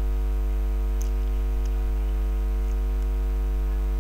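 Steady electrical mains hum picked up by a faulty computer microphone, with a few faint clicks.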